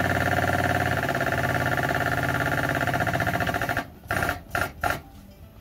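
Air-over-hydraulic foot pump running with a rapid steady pulse, driving a press cylinder that pushes a new subframe bushing into place. It stops about four seconds in, followed by a few short bursts.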